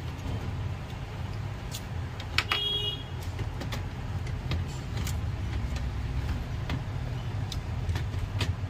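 Small clicks and plastic clatter as an HP laptop's motherboard and cables are handled and pulled loose during disassembly, over a steady low hum.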